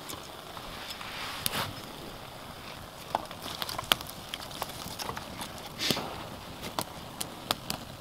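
Small wood-shaving fire crackling, with irregular sharp pops and snaps over a faint steady hiss.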